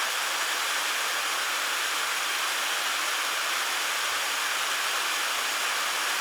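Steady rushing of flowing river water: an even hiss with no breaks or changes.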